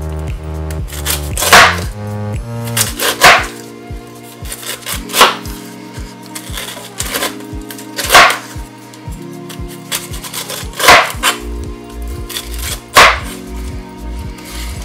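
Background music with held notes, over a large kitchen knife slicing strips of peel off a pineapple. About six sharp cuts come every two to three seconds, each ending as the blade strikes the cutting board, and these are the loudest sounds.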